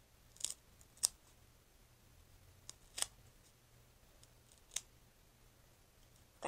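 Faint handling of small pieces of duct tape: about five short, sharp crinkles and clicks, spaced irregularly, as the tape pieces are worked and pressed together.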